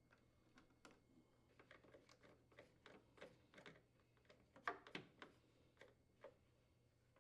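Faint, scattered clicks and light taps of screws being threaded in with a hand driver to secure a refrigerator's condenser fan motor mounting bracket, with a slightly louder cluster of clicks a little past halfway.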